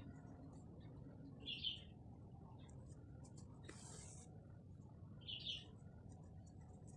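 Faint hand-sewing: a needle and thread drawn through denim, with a brief high swish near the middle. Two short, high chirps, one about a second and a half in and another about five and a half seconds in, are the loudest sounds.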